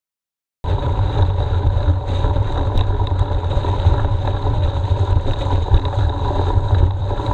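Silence for just over half a second, then a steady loud rumble of wind buffeting an action camera's microphone on a mountain bike's handlebars, with tyre and frame noise from riding over rough, frozen grass.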